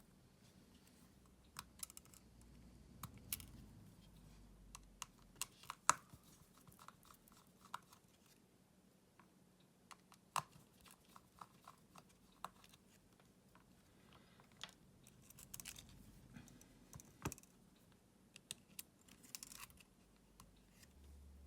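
Irregular light clicks and taps of small repair tools against the parts of a Samsung Galaxy S24 smartphone being taken apart, with a sharper click about six seconds in and again near seventeen seconds.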